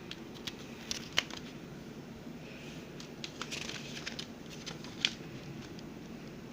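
A CD case and its paper booklet being handled: scattered sharp plastic clicks, the strongest about a second in and again about five seconds in, with crinkly rustling of paper or plastic in between.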